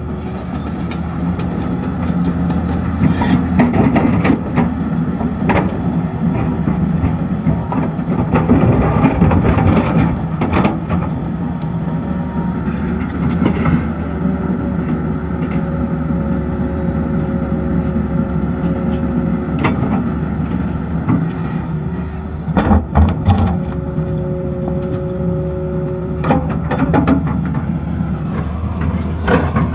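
Diesel engine of a Tata Hitachi excavator running steadily as the machine works, with scattered sharp knocks and clanks.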